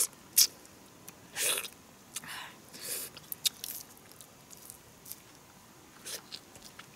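A person eating soft food by mouth: several short breathy puffs of air from pursed lips in the first three seconds, with sharp wet lip smacks and chewing clicks in between.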